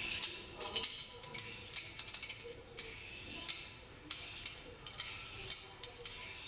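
Stainless steel julienne peeler scraped repeatedly down a cucumber, about ten short crisp strokes, each one cutting off thin strips.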